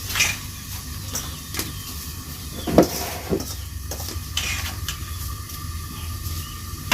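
Food being stirred in a cooking pot: scrapes and knocks of the stirring utensil against the pot, several times, over a low steady sizzle.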